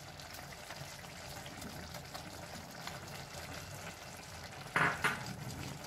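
Pot of val khichdi simmering on a medium gas flame, a steady soft bubbling hiss. Two brief louder noises come near the end.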